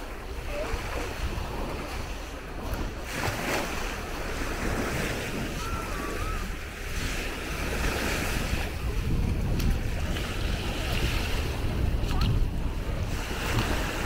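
Small Baltic Sea waves washing onto a sandy shore, with wind rumbling on the microphone.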